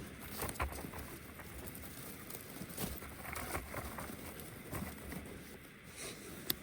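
Faint, scattered light clicks and rustles from a campfire being started.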